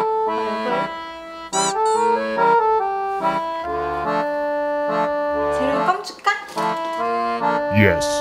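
Background music: a bouncy accordion-led tune, with a few short sliding tones over it about one and a half seconds in and near the end.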